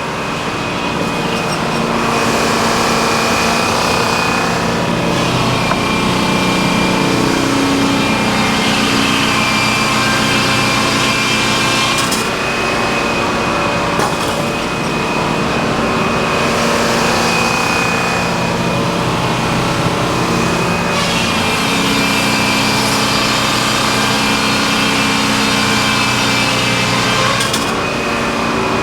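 Sawmill running and sawing a log: a steady engine note with a high whine from the saw, changing pitch and load in stretches of several seconds as the cut goes on, with a sharp knock about twelve seconds in.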